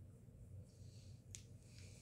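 Near silence: faint room tone with a low hum and two soft clicks, about a second in and shortly after.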